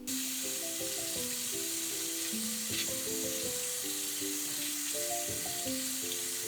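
Food frying in oil in a pan: a steady, dense sizzle that starts abruptly and cuts off just as abruptly.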